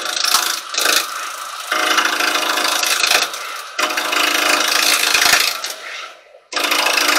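Carbide chisel with a 12 mm round cutter, rolled over, scraping and cutting into a silver birch bowl blank spinning on a wood lathe at about 1500 rpm. The rasping cut comes in several passes a second or two long, with short breaks between them, the longest break just before the end.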